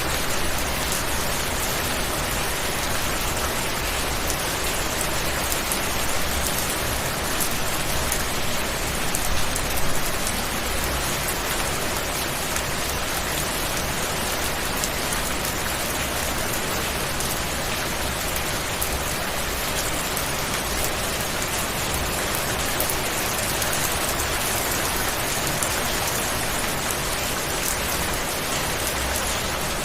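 Steady rain falling, an even hiss with no breaks, swelling a little about ten seconds in.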